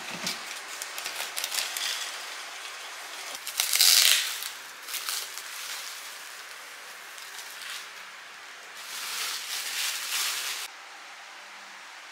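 Clear plastic wrapping crinkling and rustling as it is pulled off a potted plant, in uneven bursts, loudest about four seconds in and again for a couple of seconds near the end, then giving way to a faint steady hiss.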